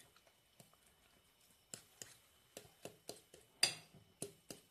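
A metal fork stirring a wet egg, lettuce and tuna mixture in a glass bowl: irregular light clinks of the fork against the glass, with one louder clink about three and a half seconds in.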